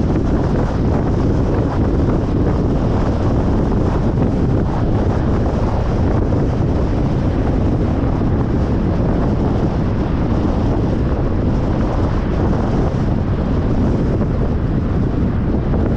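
Steady road noise of a car moving along a highway: a constant low rumble of tyres and wind with no changes.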